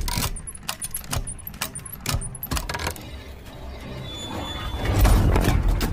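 Sound-effect track for an animated mechanism: a quick run of sharp metallic clicks and clanks, then a low rumbling whoosh that swells to a peak about five seconds in.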